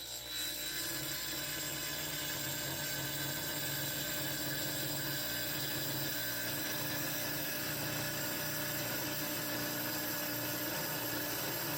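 Tile saw running steadily, its blade grinding through a hard rock specimen.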